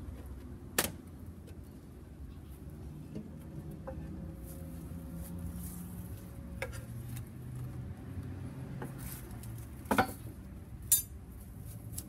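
Metal hive tool scraping and tapping against a wooden hive frame, with a sharp knock about a second in and two louder knocks close together near the end.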